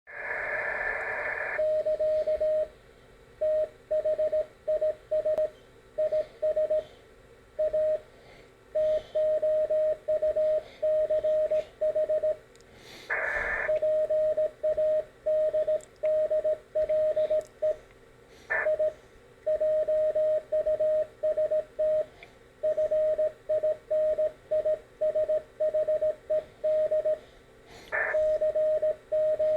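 Morse code sidetone from an iambic keyer worked by capacitive twin touch paddles: a single steady mid-pitched beep keyed on and off in dots and dashes. A few short bursts of noise break in, one at the very start and three more later on.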